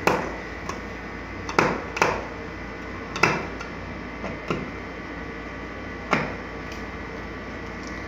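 Screwdriver clicking and knocking against a plastic push-button box as it is screwed to the wall: about six sharp, irregular knocks, the loudest at the very start. A steady low hum runs underneath.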